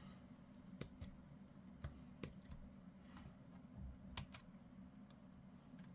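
Faint, scattered clicks and taps of small plastic model parts being handled.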